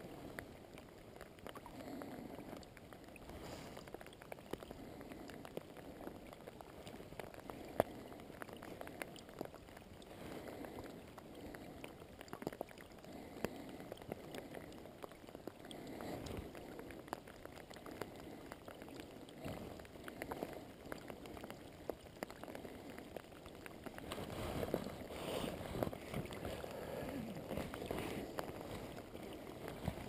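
Rain falling on a river and on a waterproof jacket: a steady patter with small scattered ticks and the rustle of the jacket's sleeves as the hands work. It gets somewhat louder in the last few seconds.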